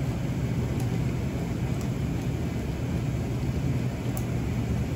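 Steady low rumble and hum of a wood-fired maple syrup evaporator running at the boil, its firebox blower fan going.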